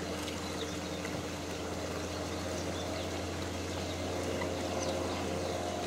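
Water lapping and moving in the crocodile pool over a constant low hum.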